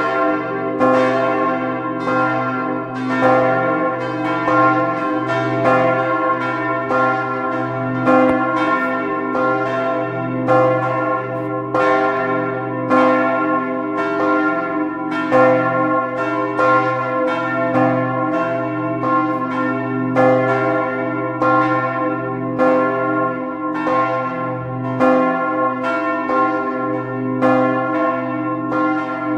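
Church tower bells, several ringing together in a full peal: strokes follow one another about twice a second and overlap, over a steady hum from the ringing bells.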